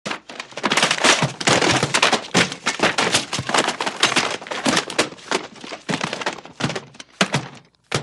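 A clumsy crash: a long, dense clatter of objects banging and knocking as they tumble and fall. It thins to a few scattered knocks near the end.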